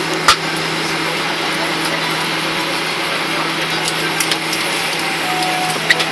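Steady cabin noise inside a Boeing 737-800 taxiing slowly on the apron: its engines at idle and the air-conditioning hiss, with a low steady hum under it. A sharp click comes about a third of a second in, and fainter clicks follow near the end.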